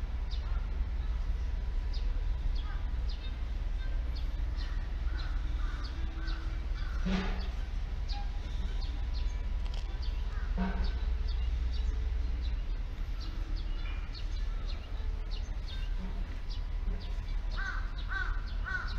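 Crows cawing: a few loud single caws about 7 and 11 seconds in, and runs of quick repeated caws, one near the end.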